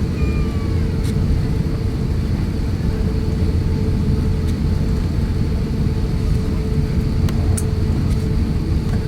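Cabin noise of an Airbus A350-1000 taxiing: a steady low rumble from the airframe and its Rolls-Royce Trent XWB engines at low thrust, with a faint steady hum and a few light clicks.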